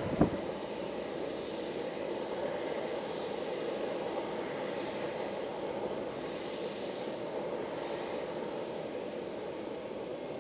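Jet airliner engines running steadily, an even rumble without changes in pitch. There is a short knock right at the start.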